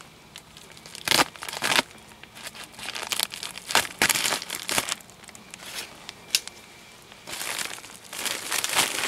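Plastic bag being opened and handled: irregular crinkling and rustling with a few sharp crackles, then a longer stretch of steady rustling near the end.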